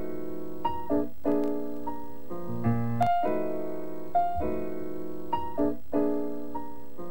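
Background piano music: a calm passage of held chords with new notes struck every half second or so.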